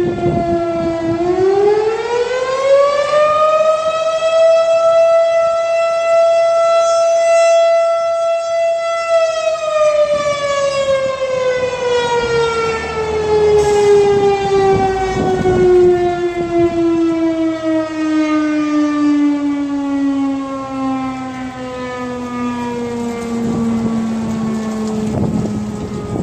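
Fire siren sounding: its wail rises in pitch about a second in, holds a steady high tone for several seconds, then winds down in one long, slowly falling tone.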